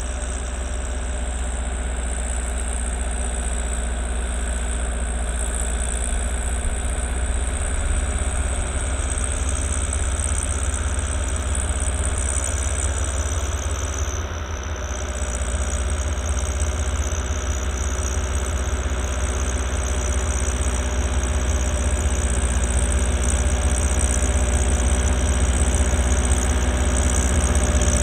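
New Holland L85 tractor's turbo-diesel engine running steadily under load while driving a PTO-powered two-stage snowblower through wet snow: a continuous deep drone with the blower's whir. It grows gradually louder over the second half as the tractor comes closer.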